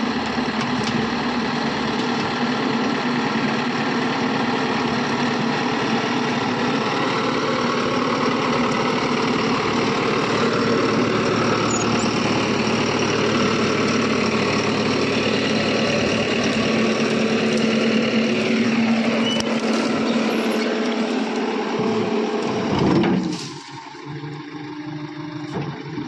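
A JCB backhoe loader's diesel engine running steadily and loud while the front loader bucket pushes soil. About 23 s in, after a short loud spike, it drops to a quieter, lower running.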